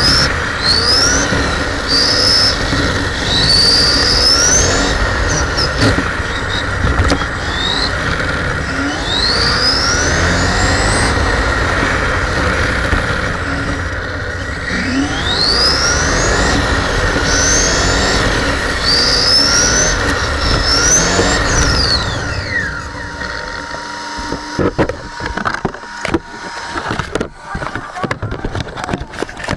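Radio-controlled F1 car's motor whining up again and again as it accelerates, each rising whine cut short, over a constant rumble of tyres and drivetrain close to the onboard camera. About 22 seconds in, the whine falls away and the car stops; a faint steady tone and scattered knocks and clicks follow.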